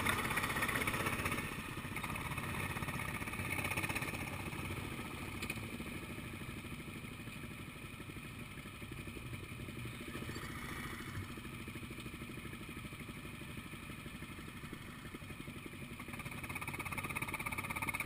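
Go-kart engine running, heard from onboard the kart: louder and higher for the first second or so, dropping to a quieter, steadier run, then rising again near the end.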